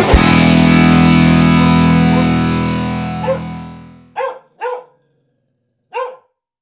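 Distorted electric guitar chord ringing out and fading away over about four seconds, then a dog barks three times.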